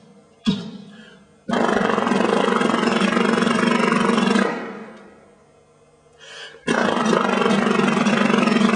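A sharp knock about half a second in, then two long, loud, steady roaring vocal sound effects made by a mime's voice, about three seconds and two and a half seconds long, with a short faint sound between them.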